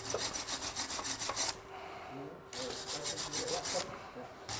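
Hand wire brush with a wooden back scrubbing a fillet weld seam on sheet metal in rapid back-and-forth strokes, about eight a second. It comes in two bouts with a short pause about halfway through.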